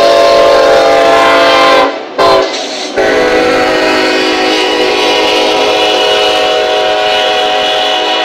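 Lead BNSF diesel locomotive's air horn blowing as it passes close by: a long blast ending about two seconds in, a short toot, then another long blast held to the end, the pattern of a grade-crossing signal. The rumble of the train's wheels runs underneath.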